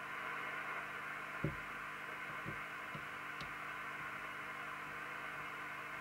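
Steady hiss and hum, with a few faint clicks as the alignment tool works the coil cores of the receiver's T2 IF transformers.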